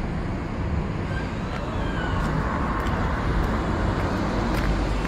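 Steady street noise of road traffic, a low rumble with no single vehicle standing out.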